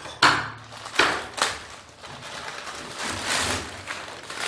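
Clear plastic packaging bag crinkling and rustling in several bursts as a folded metal light stand is pulled out of it.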